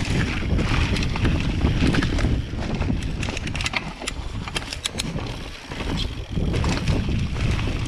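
Mountain bike rolling fast down a dirt forest trail, heard from a camera riding along: a steady low rumble of wind on the microphone and tyres on dirt, with the bike rattling and a run of sharp clicks and knocks from about three to five seconds in. It goes briefly quieter about five and a half seconds in.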